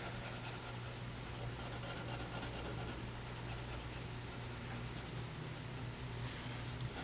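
Pencil sketching on paper: faint, steady scratching of graphite strokes.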